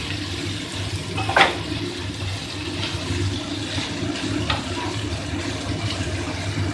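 Spatula stirring and turning flattened rice with vegetables in a frying pan over a low flame: a steady soft frying hiss with a few sharp spatula scrapes against the pan, the loudest about a second and a half in.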